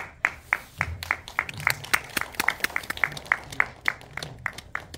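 Small audience applauding: scattered, distinct hand claps, several a second.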